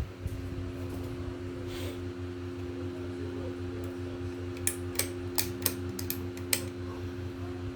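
Many ceiling fans running together on low speed: a steady motor hum with a low, pulsing throb. About five seconds in, a quick run of six sharp clicks.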